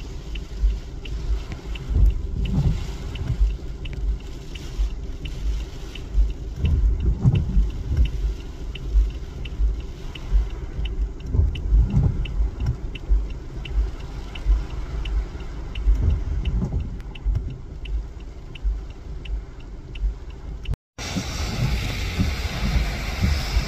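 Car driving with a low, uneven rumble that swells and dips, and a light regular ticking throughout.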